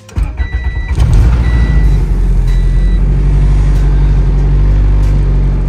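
Turbocharged Honda LS-VTEC four-cylinder cold-started: the starter cranks for about a second, the engine catches and settles straight into a loud, steady idle. A short beeping tone sounds three times, about once a second, over the start.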